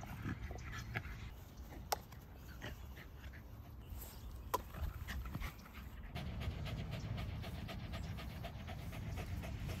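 Corgi panting quickly and evenly from about six seconds in, winded from playing fetch. Before that, a few sharp clicks, the loudest about two seconds in.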